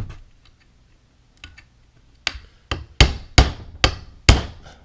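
Hammer tapping a retaining pin into the shotgun's carrier latch: a burst of about six sharp metallic taps in quick succession in the second half, after a couple of lighter ticks. The pin is not seating easily on a work surface that isn't solid enough.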